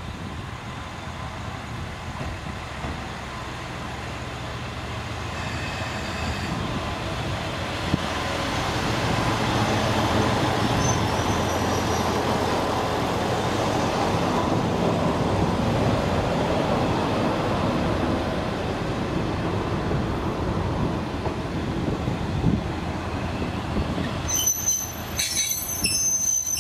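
Chizu Express HOT3500 series diesel railcar running into a station, its engine and wheels rumbling and growing louder as it draws alongside. Near the end come high-pitched metallic squeals.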